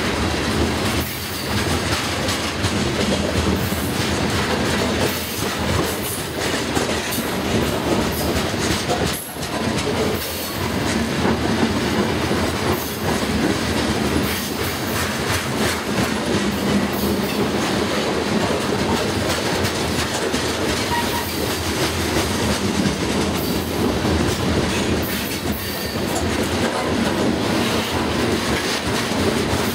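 Covered hopper cars of a freight grain train rolling past close by: a steady rumble of steel wheels on the rails with continual clicking as the wheels pass over the track.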